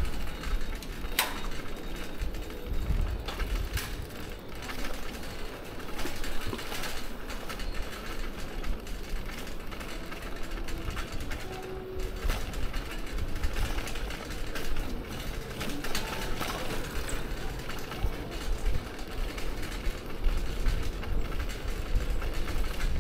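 City bicycle with a wire front basket rattling as it rolls over brick paving, with steady tyre and road noise. Two sharp clicks come in the first few seconds.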